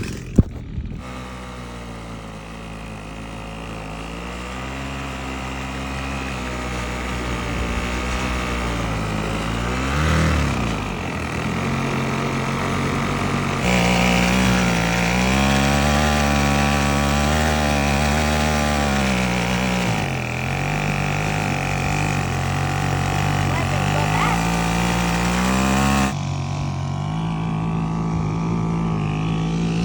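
Small two-stroke weed eater engine running a kayak, its pitch wavering up and down as the throttle changes. The sound changes abruptly a few times, with a sharp click near the start.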